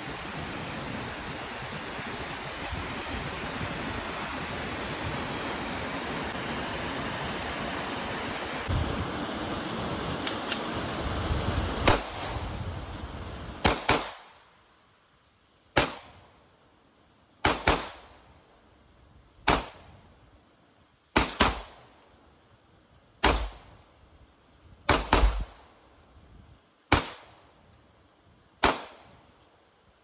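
Steady rush of a creek, cut off about halfway through by a series of about a dozen sharp bangs, each with a short echo, spaced every one to two seconds and a few in quick pairs: shots fired from a handgun.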